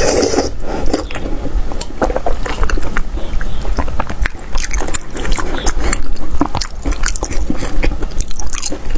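Close-miked biting into and chewing of boiled sausages: wet squishing and many short, sharp mouth clicks, with a loud bite right at the start.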